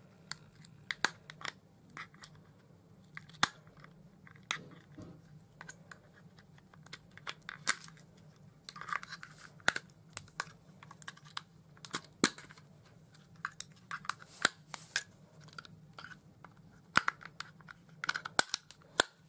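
Scattered sharp plastic clicks and taps from AAA batteries being pried out of a tight battery compartment in a small handheld device, over a faint low hum.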